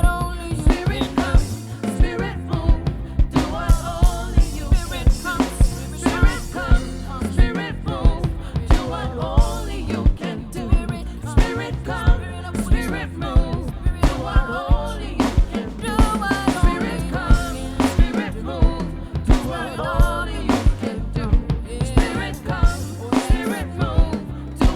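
Live gospel worship band music: drum kit and bass keeping a steady beat, with a wavering melody line on top.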